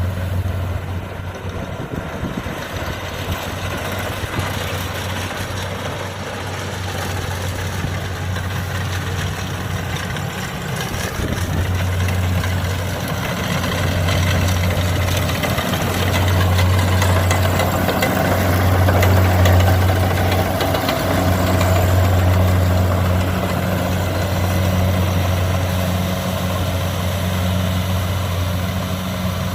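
Kubota DC70 combine harvester's diesel engine running steadily, a loud low hum that swells and eases several times in the second half.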